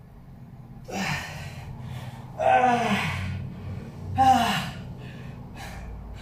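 A man's heavy, strained breathing while holding a bodyweight squat to failure: three loud voiced exhalations, each falling in pitch, about one, two and a half and four seconds in, with quieter panting between.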